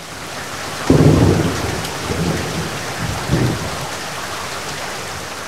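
Heavy rain with a thunderclap about a second in that rumbles on, and a second rumble of thunder a couple of seconds later.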